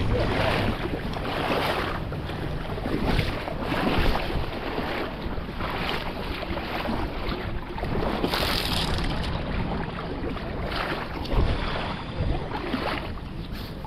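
Gusty wind buffeting the microphone in irregular surges over the steady rush of creek water.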